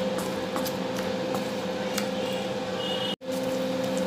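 Wooden spatula stirring chicken pieces through thick curry gravy in a nonstick pan, with soft squelching and small scrapes and taps against the pan, over a steady electrical hum. The sound drops out for an instant about three seconds in.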